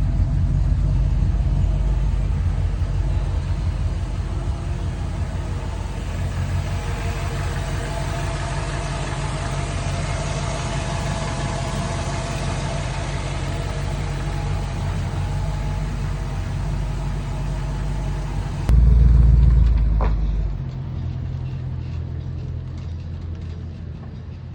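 Ford Shoebox car engine idling steadily while its cooling system is burped of trapped air after a heater core replacement. About 19 s in, a sudden loud low rumble lasts about two seconds, and after it the sound is quieter.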